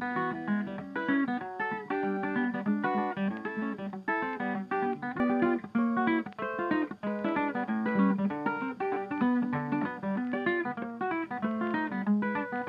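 Background music: an acoustic guitar playing a quick run of plucked notes without a break.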